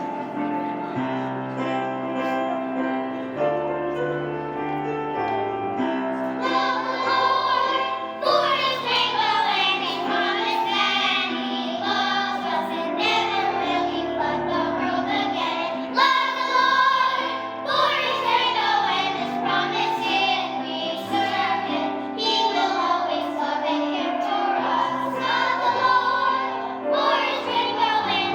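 Children's choir singing a song from a musical over an instrumental accompaniment. The voices come in about six seconds in, after a short instrumental passage.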